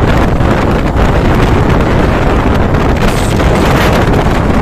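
Loud, steady rush of wind buffeting the microphone at the open window of a moving passenger train, over the low rumble of the train running along the track.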